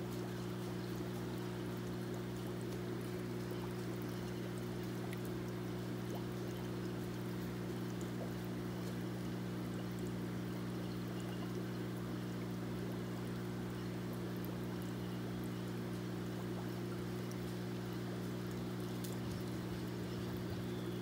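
Aquarium filter return water pouring steadily into a stingray tub, over a constant low hum from the pump.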